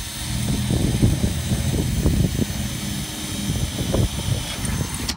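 Cordless drill running steadily with a high motor whine as a small pilot bit bores through the boat's metal gunwale, with uneven grinding of the bit in the metal underneath. The drill stops just before the end.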